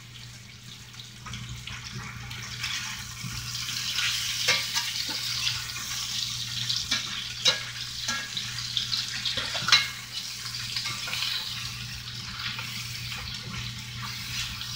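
Meat pieces frying in a cast-iron skillet: a steady sizzle that builds over the first few seconds, with a spatula scraping and clicking against the pan as the pieces are stirred and turned.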